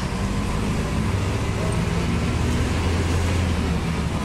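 Marcopolo Torino city bus running along the road, heard from inside: a steady diesel engine hum with tyre and road noise. The engine's low hum grows stronger a little past halfway.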